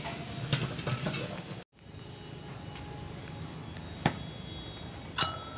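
Insects chirping steadily in the background, broken by a few sharp clicks and knocks. The loudest click comes shortly before the end with a brief ringing tone. The sound drops out completely for a moment about one and a half seconds in.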